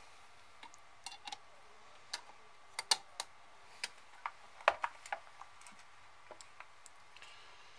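Small plastic and metal parts being handled: a string of irregular clicks and taps, about a dozen, the loudest about three and almost five seconds in.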